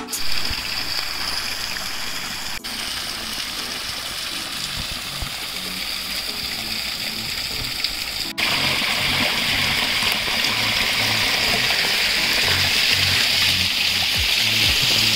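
Steady rush of running water, with background music under it. The sound changes abruptly twice, about two and a half and eight seconds in, and is louder after the second change.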